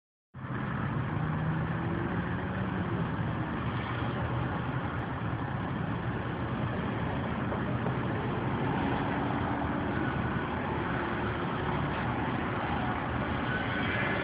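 Steady engine and road noise heard inside a car's cabin.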